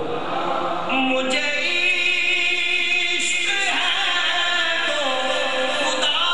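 Man's voice singing a naat unaccompanied into a microphone, drawing out long, steady held notes that step up and down in pitch, beginning about a second in.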